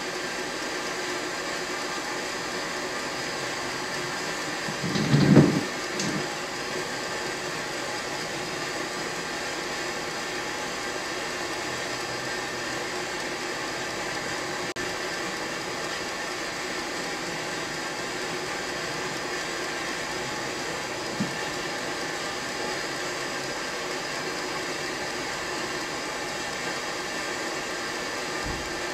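Steady machine hum, with a brief low thump about five seconds in.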